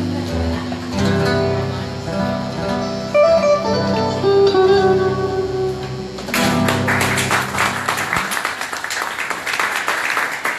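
Acoustic guitar music playing the last notes of a song, the final chord ringing out, with clapping and applause breaking out about six seconds in.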